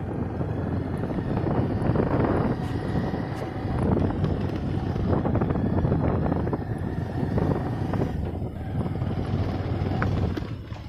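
Motorcycle engine running while the bike rides along a rough off-road track, mixed with rushing noise of the ride.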